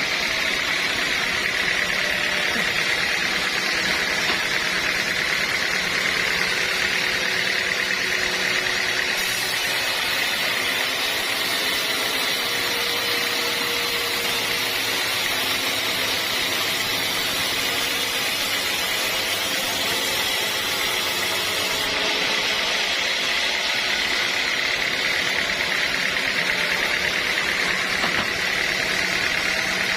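Sawmill saw and its drive running steadily, a constant machine noise with an even whine, as teak logs are sawn.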